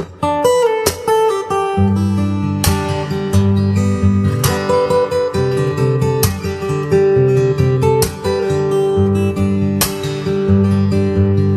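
A live orchestra of strings and winds playing a Christmas hymn, with crisp note attacks over a bass line that moves in steps.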